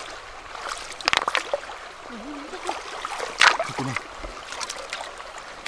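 Shallow river water trickling and sloshing around hands working in it, with a few sharp clacks of river stones knocked together as they are stacked into a trap wall, the loudest about three and a half seconds in.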